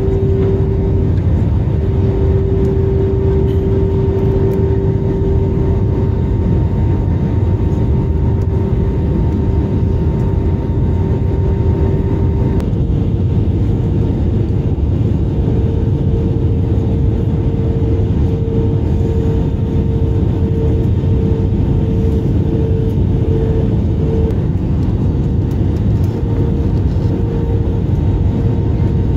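Steady cabin noise of an Airbus A320neo on final approach, heard from a window seat over the wing: a low rumble of airflow and its Pratt & Whitney PW1100G geared turbofan engines. A steady engine hum steps up slightly in pitch about halfway through as the thrust changes.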